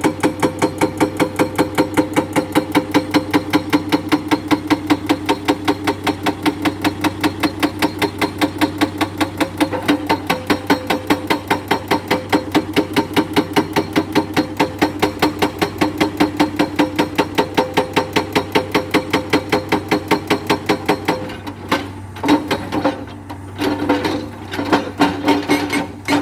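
Excavator-mounted hydraulic rock breaker hammering limestone in fast, even blows, several a second, over the steady hum of the excavator's engine. Near the end the blows falter and stop for a couple of seconds, then start again.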